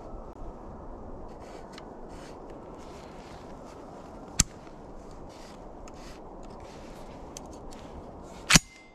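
Metal clicks and light rattles from handling a semi-automatic shotgun taken apart, its forend off and magazine tube and gas piston bare, while its split O-ring is being dealt with. Two sharp clicks stand out, one about four seconds in and a louder one near the end, over a steady low rush.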